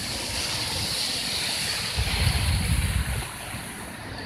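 Sea surf washing and breaking against a rocky shore, with a louder low rumble between about two and three seconds in.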